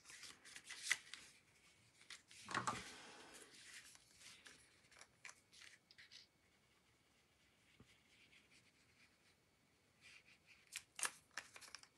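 Quiet handling of a folded paper card and a plastic liquid-glue bottle as glue is spread on the card. Scattered light rustles and clicks, with a longer rustle of card about two and a half seconds in and a few sharp clicks near the end.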